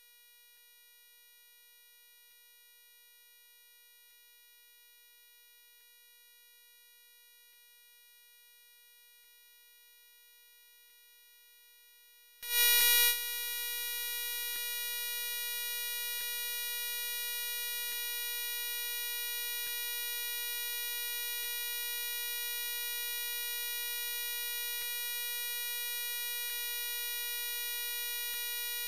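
A steady, buzzy electronic tone, faint at first. About twelve seconds in it jumps sharply much louder after a brief louder burst, then holds unchanged.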